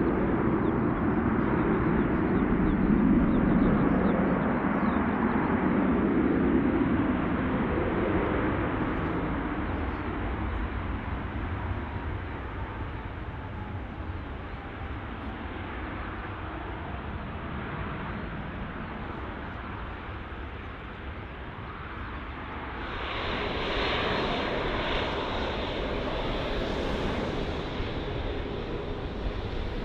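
Airbus A380 jet landing: a loud, low jet-engine rumble that fades over the first third, then swells again with a harsher, higher rush about three-quarters of the way through.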